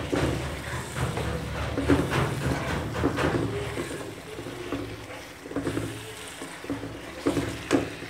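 Boiled beef pieces being stirred with a spatula through a tomato-and-spice masala frying in oil in a kadhai: repeated scraping, sloshing strokes over a steady sizzle.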